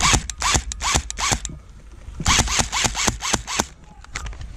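Airsoft electric rifle (AEG) firing two bursts on full auto, with the gearbox cycling at a slow clatter of about seven shots a second. The slow rate is a sign of a low-voltage battery.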